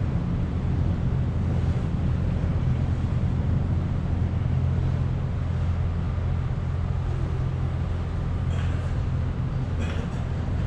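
Steady low rumble of a cruise ship under way, with wind buffeting the microphone.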